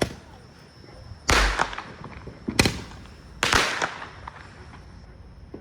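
Fireworks going off: three loud, sharp bangs about a second apart, each trailing off briefly, then a faint pop near the end.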